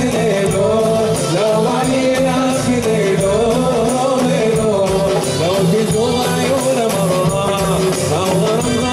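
Live Arabic Gulf folk music: a male voice singing a wavering melody over oud and hand drums, with the drums keeping a steady beat.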